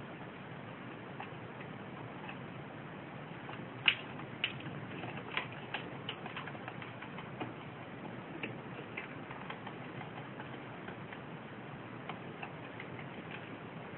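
Diamond doves pecking at seed: irregular sharp clicks, the loudest about four seconds in, over a steady hiss.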